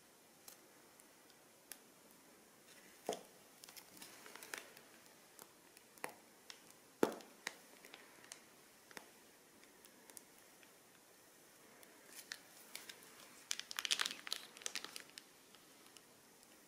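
Plastic piping bags and slime being handled, making scattered crinkles and crackles, with one sharp snap about seven seconds in and a dense run of crackling near the end.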